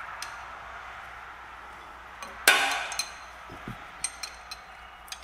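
Metal hand tools and brake hardware clinking: one sharp metallic clank about two and a half seconds in, with a short ring, then a few light clicks and taps as a wrench works the brake hose fitting on a rear brake caliper.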